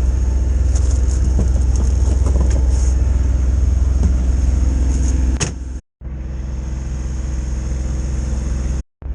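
Sailboat's inboard engine running with a steady low drone, with light ticks over it. A sharp knock comes about five seconds in.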